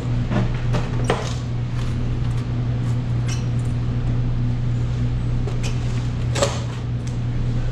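Convenience-store ambience: a steady low hum with scattered light clicks and knocks, the sharpest knock about six and a half seconds in.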